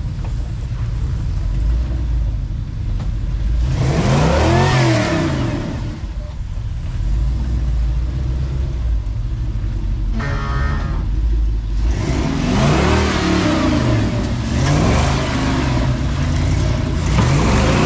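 Off-road rock-crawling rig's engine running low and steady, revved hard in surges: once about four seconds in, then again and again in the last six seconds as it works up a slick climb.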